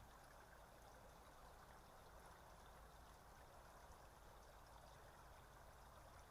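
Faint, steady rush of running water from a stream.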